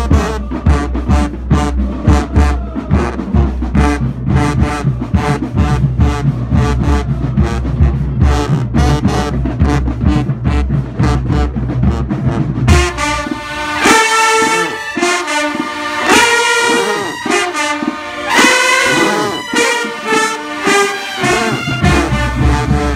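High school marching band playing. For the first half a steady drum beat and heavy low bass carry it; about halfway through, the brass section comes in with loud horn lines over the drums.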